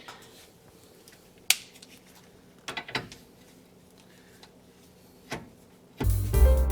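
A few separate metallic clinks and taps of hand tools on the suspension bolts, the sharpest about a second and a half in. About six seconds in, loud backing music with a drum kit cuts in suddenly.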